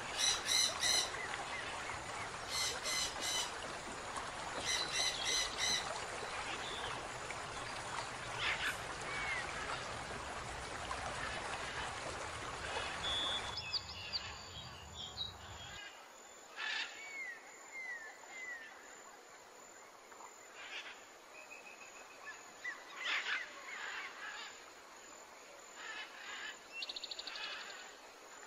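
Running stream water with repeated bird calls. About halfway through it becomes quieter, leaving scattered bird chirps and short whistles.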